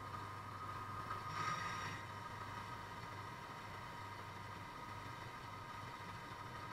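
Drill press running steadily with a motor hum and a whine, drilling into a cast aluminium router insert plate, with a brief louder scratchy burst about a second and a half in as the bit cuts into the metal.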